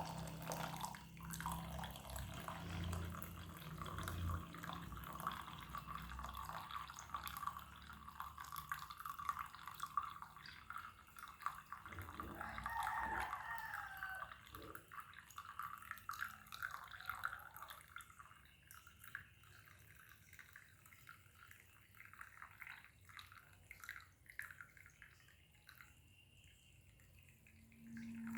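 Water trickling and dripping, growing much fainter after about eighteen seconds and leaving only scattered faint drips.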